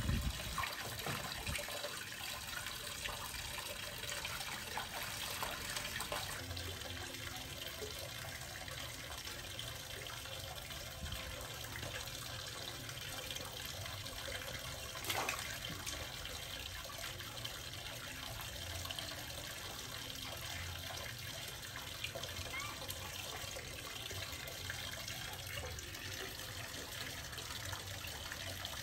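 Water running steadily, like a tap pouring, with one brief knock about halfway through.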